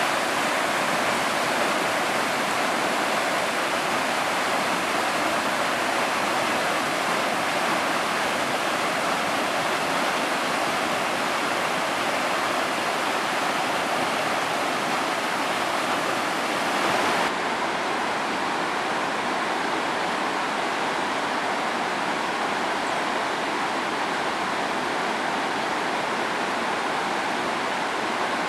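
Rain-swollen mountain stream in spate: muddy white water rushing over boulders and small cascades in a steady, loud rush. About two-thirds of the way through, the sound changes abruptly to a slightly softer rush of the same torrent.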